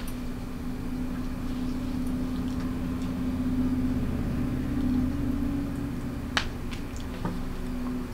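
A steady low mechanical hum that grows a little louder, then eases off. A few sharp small clicks near the end come from crab shells being picked apart.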